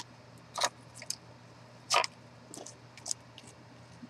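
Plastic fork scraping thick gel medium across a paper stencil: a series of short, irregular scraping strokes, the loudest about two seconds in.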